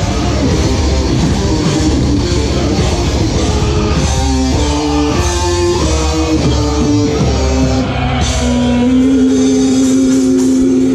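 Live rock band playing loud, with electric guitars, bass guitar and drum kit. A riff of separate stepped notes runs through the middle, and a long held note starts near the end.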